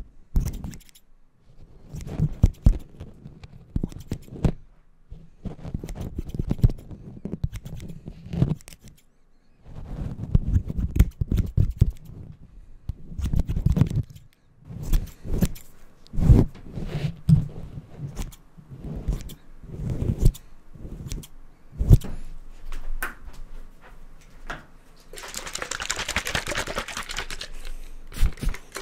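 Close-up mock-haircut sounds on a furry microphone windscreen: irregular snips and clicks with rubbing, in uneven bursts. Near the end comes a few seconds of steady hiss.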